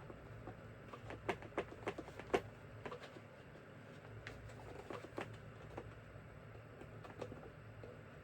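Small sharp clicks and taps, a quick cluster of them a second or two in and then fainter scattered ticks, from screwdriver bits being handled and fitted into the slots of a plastic screwdriver-set case.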